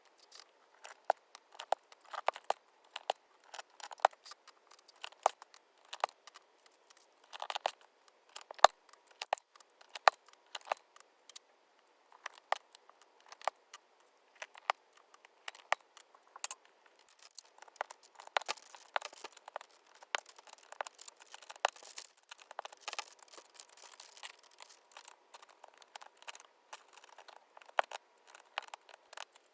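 Plastic keycaps clicking and clattering on a mechanical keyboard during a keycap swap. There are irregular sharp clicks, coming in denser bursts of small rattling clicks partway through.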